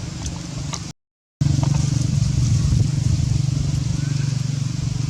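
A steady low motor rumble, like a nearby engine running, with a sudden silent gap about a second in, after which it comes back louder.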